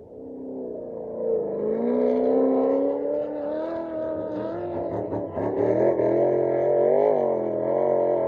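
Unlimited-class off-road race vehicle's engine growing louder over the first second or two, then revving with a pitch that keeps rising and falling.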